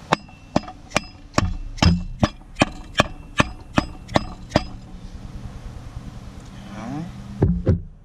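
Tapping a part down to seat it in a 4L60E transmission case: about a dozen sharp taps, a little over two a second, each with a short metallic ring, then a pause and two more taps near the end.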